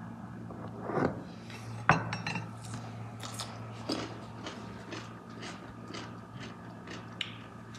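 Crisp home-pickled cucumber being bitten and chewed. A dull knock comes about a second in, then a sharp loud crunch just before two seconds, followed by a run of crisp crunching chews about twice a second.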